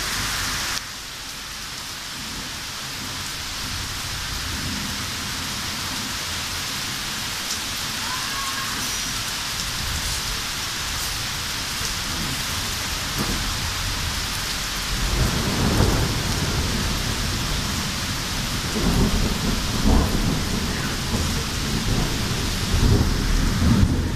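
Steady rain hissing during a thunderstorm, with rolling thunder rumbling deep in the second half, swelling about three times.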